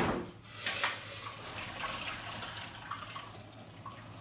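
Boiling water and blanched broccoli poured from a pot into a steel colander in the sink: water rushing and splashing down the drain, with metal clanks near the start and about a second in, the splashing fading away.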